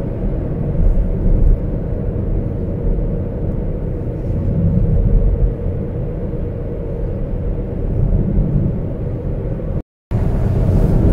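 Road noise inside a moving car's cabin at highway speed: a steady low rumble of tyres and engine with a faint even hum. The sound drops out completely for a moment near the end.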